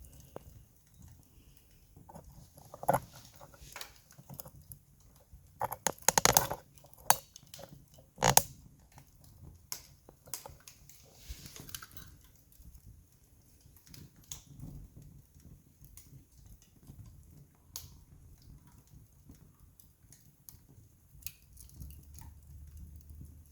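Wood campfire crackling and popping, with scattered sharp snaps and a burst of loud crackles about six seconds in, over a low, soft rumble of the flames.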